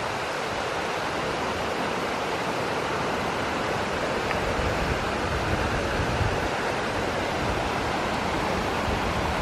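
Steady rushing of a small mountain river flowing over rocks.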